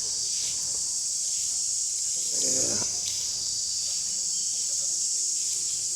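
Steady, high-pitched chirring of an insect chorus, unbroken throughout.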